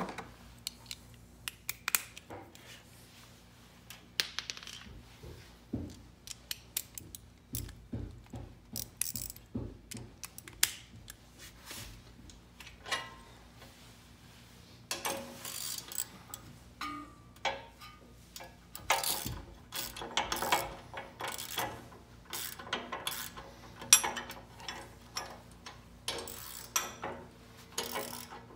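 Two 9/16 wrenches working the hitch mounting bolts: a long series of irregular metallic clicks and clinks, some coming in quick runs.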